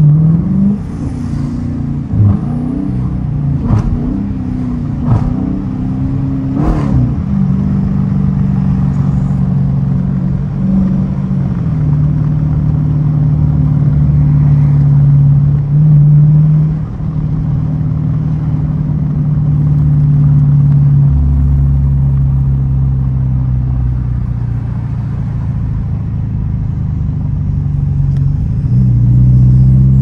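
Dodge Challenger R/T's 5.7-litre Hemi V8 heard from inside the cabin while driving. In the first seven seconds the engine note rises and falls with four sharp pops, then it settles into a steady drone whose pitch shifts a few times, with a deeper rumble for a stretch near the end.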